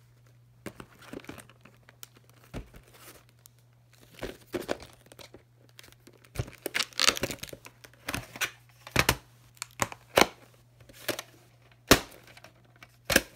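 Plastic clamshell VHS cases being handled and opened: a string of irregular sharp clicks and snaps from the plastic shells, with crinkly rustling between them and the loudest snaps in the second half. A faint steady hum sits underneath.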